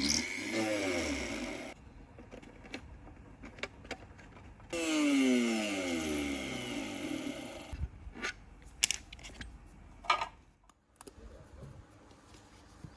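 Ozito RTR-4100 rotary tool drilling small holes into wooden blocks in two runs of about two to three seconds each, its whine falling in pitch as each run ends. A few sharp clicks and knocks follow in the seconds after.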